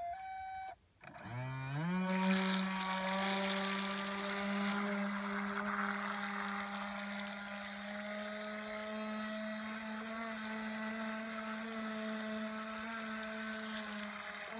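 Electric motor and propeller of a 1/12-scale radio-controlled Bluebird K3 model hydroplane: after a short steady tone, the motor spins up in a rising whine about a second in, then holds a steady high-pitched whine with water hiss as the boat speeds away, easing a little in the second half.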